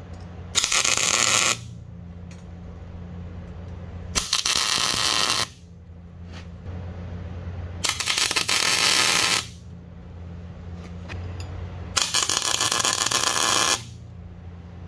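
MIG welder tack-welding steel support plates in place: four short bursts of arc hiss, each one to two seconds long, a few seconds apart. A steady low hum runs between the welds.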